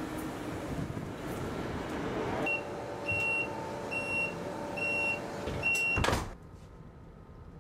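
ICE high-speed train's door-closing warning: five short high beeps about a second apart over a steady hum, then the sliding door shuts with a thud about six seconds in, and the outside noise drops away.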